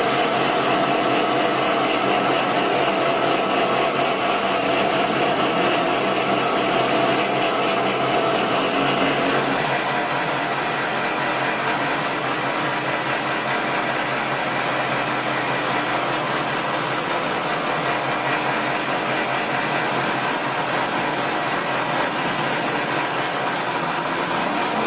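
Chainsaw engine running steadily at high revs, as when ripping a log lengthwise with a chainsaw mill, with a slight change in tone about nine seconds in.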